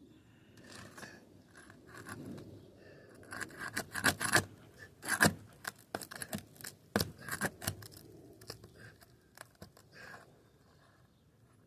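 Scraping and sharp clicking knocks as a tool is worked under old 3-tab asphalt shingles to break their seal, with a cluster of louder knocks a few seconds in.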